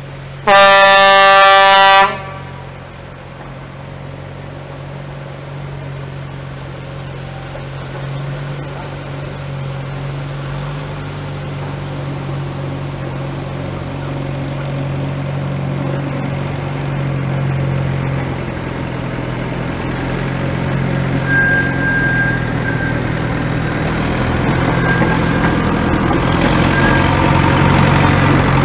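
Small red narrow-gauge railcar sounds one loud horn blast of about a second and a half. Its engine then runs steadily, growing louder as it approaches and passes.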